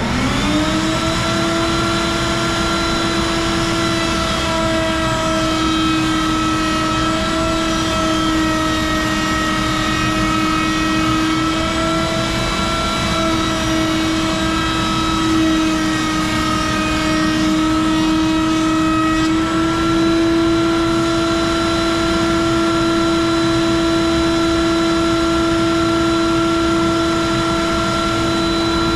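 Wood router spinning up to full speed and running with a steady high whine while a chamfer is cut on board edges. The pitch sags and wavers slightly under load for the middle part of the stretch, then runs steady.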